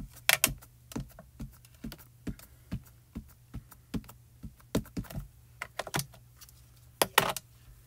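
A plastic-cased pigment ink pad tapped again and again onto a photopolymer stamp mounted on an acrylic block, inking it: light, even taps a little over two a second. There is a louder clatter near the end.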